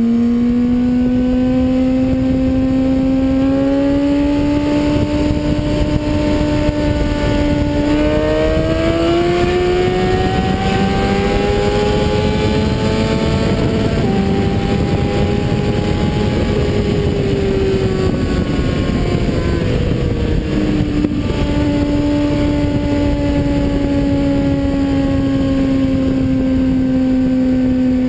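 Sport motorcycle engine heard from on board at speed, over heavy wind rush. The engine note climbs hard about eight seconds in and changes gear about halfway through. It then falls away, steps down again with another gear change, and settles into a steady cruise that sinks slowly.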